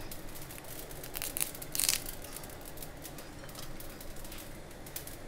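Curry leaves dropped into a dry cast iron kadai holding mustard seeds: two brief rustling bursts about one and two seconds in, with faint scattered crackling clicks from the heating pan throughout.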